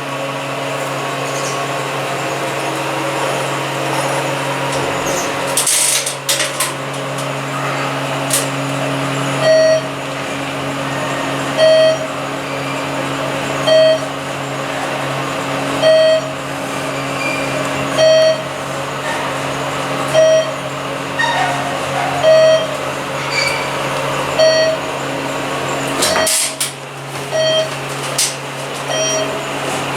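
A ThyssenKrupp elevator car travelling down, with a steady hum. From about a third of the way in, a short electronic beep repeats about every two seconds, and there are two brief rustling bursts.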